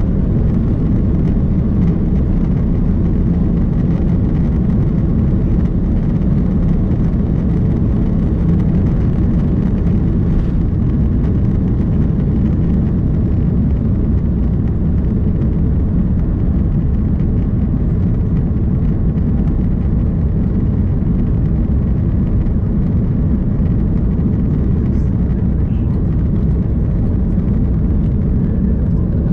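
Airbus A330-203's GE CF6-80E1A3 turbofan engines at high thrust, heard inside the cabin as a steady, loud, low roar during the takeoff climb.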